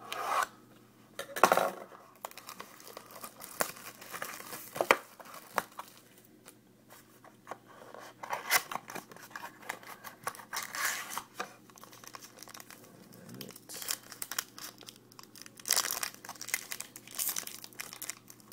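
Trading-card packaging being torn open and handled, with irregular bursts of tearing and crinkling wrapper throughout.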